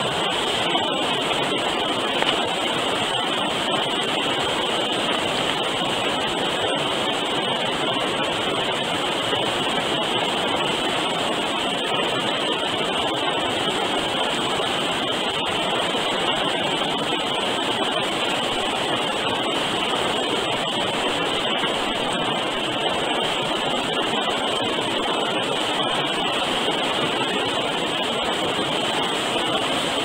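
River water rushing steadily over rocky ledges: a constant, even wash of sound.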